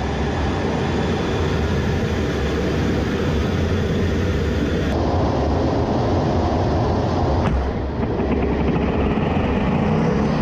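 Fighter jet's engines running at high power, heard from inside the cockpit as the jet launches off an aircraft carrier deck, with a single sharp click about two-thirds of the way through.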